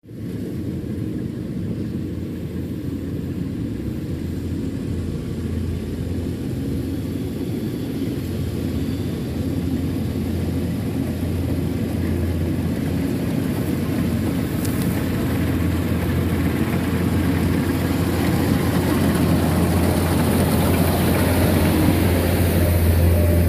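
Rice combine harvester's engine running with a steady low drone, growing gradually louder.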